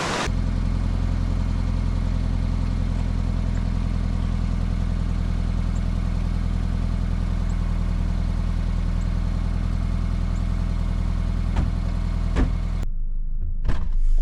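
Car engine idling, a steady low hum that does not change in pitch. Two clicks sound near the end, then the hum cuts off abruptly and a few sharp knocks follow.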